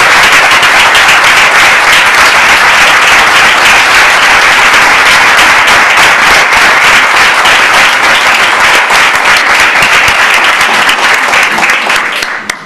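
Sustained applause from a roomful of people clapping, many hands at once, dying away near the end.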